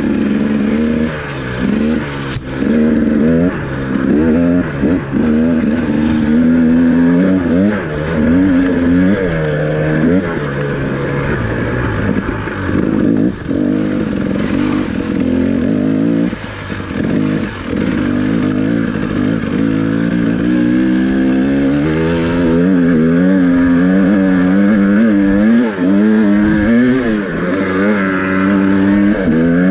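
2018 KTM 300XC's 300cc single-cylinder two-stroke engine, on its stock expansion chamber and FMF Turbine Core 2.1 silencer, ridden hard off-road: the revs climb and fall again and again as the throttle is worked through the gears, with brief chops off the throttle.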